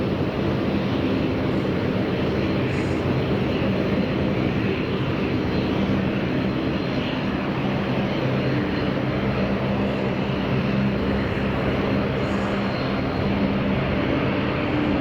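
Airliner engines running steadily, a constant noise with a low hum that holds level throughout.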